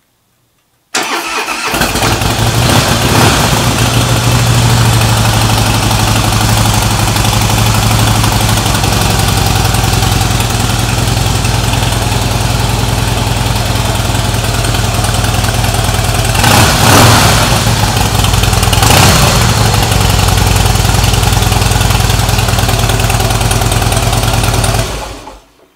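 Harley-Davidson CVO motorcycle's V-twin engine on its stock exhaust pipes: it starts about a second in and idles steadily, is blipped twice briefly about two-thirds of the way through, then is switched off near the end.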